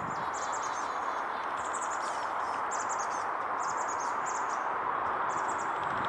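High, thin chirps of small songbirds in short clusters, about five times, over a steady rushing background noise.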